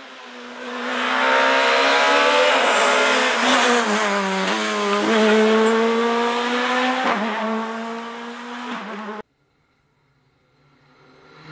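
Rally car engine at high revs passing close by, its pitch dropping and climbing several times with gear changes and lifts off the throttle. The sound cuts off abruptly about nine seconds in.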